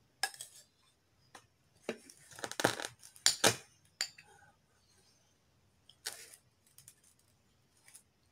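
Metal spoon and fork clinking and scraping against ceramic plates while food is scooped up. A busy run of clinks and scrapes comes about two to three and a half seconds in, then single clinks and another scrape around six seconds.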